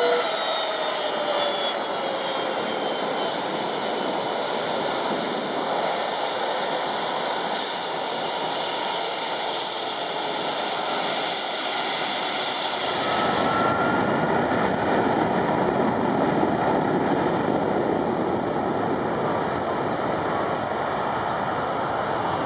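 Boeing 757 jet engines running as the airliner turns onto the runway, their whine sliding down at the start. About halfway through they spool up toward takeoff thrust: a deep rumble of jet blast comes in suddenly, with a rising whine over it as the takeoff roll begins.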